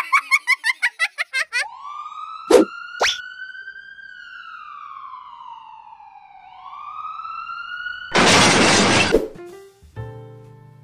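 Cartoon ambulance siren sound effect: one slow wail that rises, sinks gradually and rises again. Before it, a quick run of warbling chirps; two sharp clicks come early in the wail, and a loud rushing burst of noise lasting about a second follows it.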